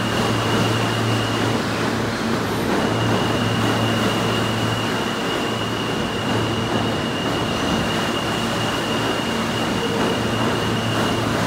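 A New York City Subway R160 train running past the platform: a steady rumble of wheels on rail with a low motor hum. A thin, steady high whine runs over it and drops out briefly about two seconds in.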